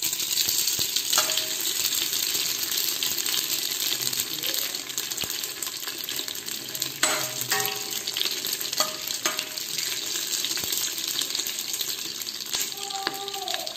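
Whole spices (cinnamon stick, fennel seeds, poppy seeds and cardamom) sizzling steadily in hot oil in a stainless steel pressure cooker, stirred with a metal ladle. The ladle rings briefly against the steel pot a few times.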